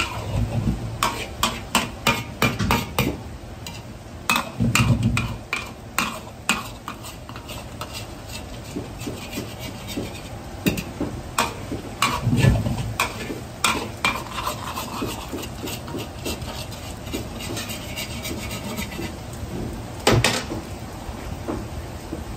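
Metal ladle clacking and scraping against a wok at irregular intervals while a large egg omelette fries in oil with a steady sizzle.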